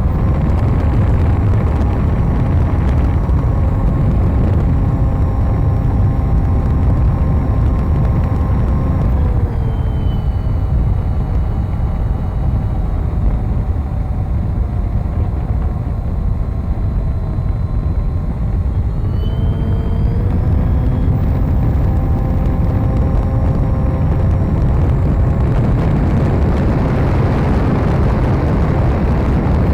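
RC model plane's motor and propeller running in flight, heard from an onboard camera with heavy wind rush over the microphone. The motor's pitch drops as the throttle is eased back about nine seconds in, then rises again as it is opened up about twenty seconds in.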